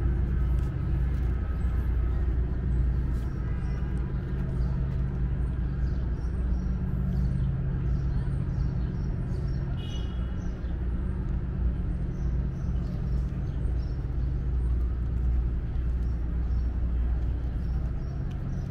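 Steady low hum of an idling engine or heavy machinery, with outdoor city background. A brief high-pitched sound about ten seconds in.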